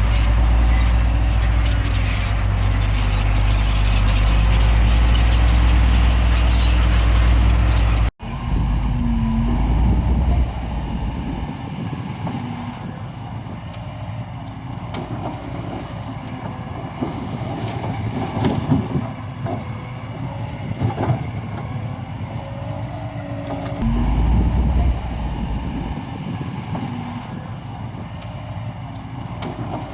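Heavy construction machinery running with a deep, steady engine rumble. About eight seconds in the sound cuts off sharply, then the engine goes on quieter with scattered clanks and knocks of working equipment.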